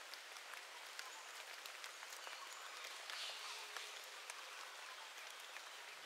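Faint, steady rainfall from a rainforest ambience track: a soft hiss of rain with many individual drops ticking. Gentle music comes in at the very end.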